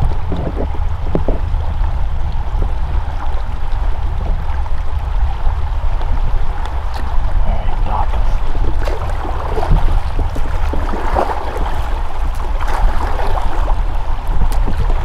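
River water rushing and rippling around a raft drifting through fast, shallow current, with a steady low rumble underneath.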